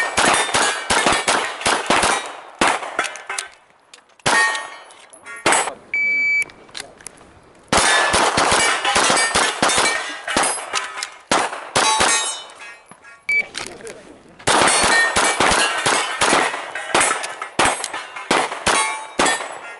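Three rapid strings of handgun shots at steel knockdown plates, the hits clanging and ringing the plates. A short, high electronic beep comes before the second and third strings.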